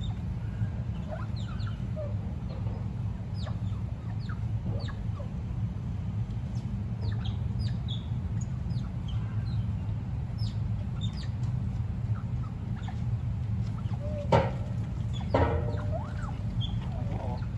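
A family of smooth-coated otters calling as they move about: many short, high chirps, each falling in pitch, scattered throughout, with two louder, fuller calls about a second apart near the end. A steady low hum sits underneath.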